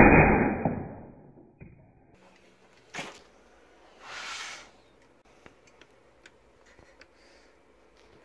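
The fading tail of a shot from a Daisy Powerline 880S .177 multi-pump air rifle, dying away over about a second and a half. Then a sharp click about three seconds in and a short rustle of handling a second later.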